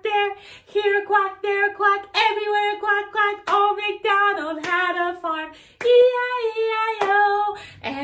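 A woman singing a children's song alone, in short separate notes with brief breaks between them.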